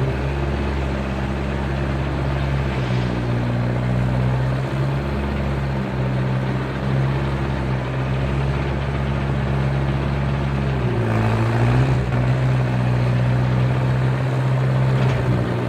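Skid steer engine running steadily while flattening rubble, its pitch dipping and recovering once about eleven seconds in.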